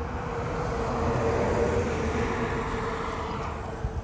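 A vehicle passing by, its noise swelling over the first two seconds and fading away, over a steady low hum; a short tap near the end.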